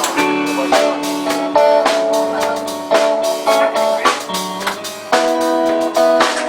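A band playing a song instrumentally: guitar notes over a drum kit, with no singing.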